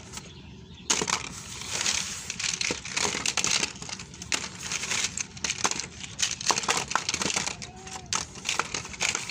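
Small toy cars clattering and scraping against one another and the board as hands shuffle them around, a busy run of clicks and knocks starting about a second in.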